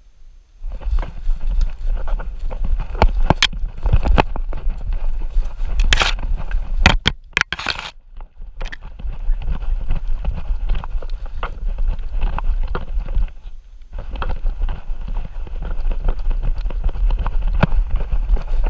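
Action camera worn by a dog moving along a woodland trail: the mount knocks and rubs in time with its steps, with paws scuffing the ground, over a steady low rumble of handling noise. The movement stops briefly about eight seconds in and again a little before fourteen seconds.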